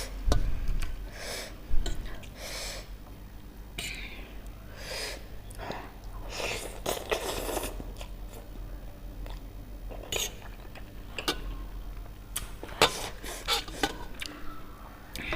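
A person chewing and crunching food at irregular intervals, with a few sharp clicks.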